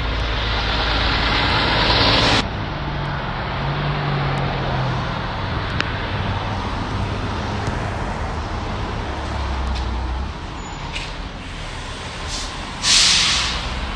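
Steady road-traffic noise from passing vehicles, louder for the first couple of seconds, with a short loud hiss near the end.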